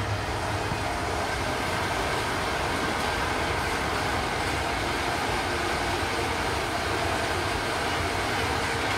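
Roller coaster car climbing the lift hill, a steady mechanical rattle of the lift running under the car.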